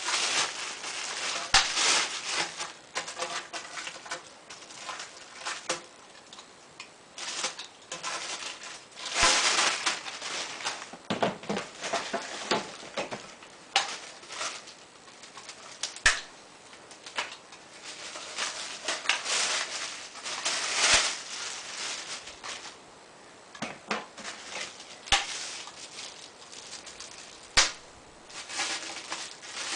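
Packaging being cut open and pulled off by hand: plastic and cardboard rustling and crinkling, with scattered sharp clicks and knocks of parts being handled.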